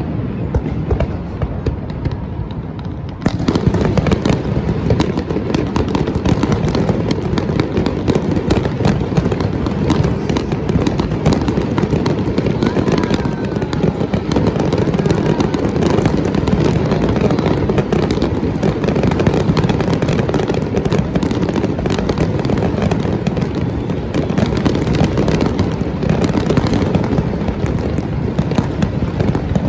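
Fireworks display: a dense, continuous barrage of bangs and crackles that turns sharply louder about three seconds in.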